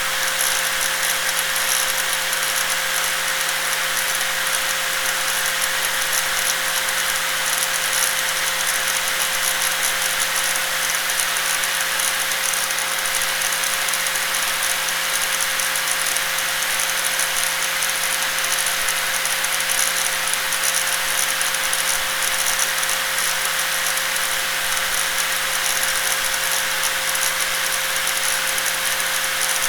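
Electric angle grinder running steadily with no letup: a constant whine over a dense high hiss.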